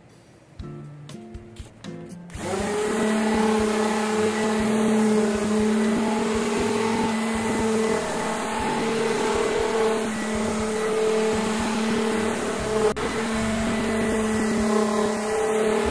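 Random orbital sander switched on about two seconds in and running steadily against a wooden panel, its motor giving a steady hum with a short sharp click partway through. This is the final sanding pass with 180-grit paper, before staining.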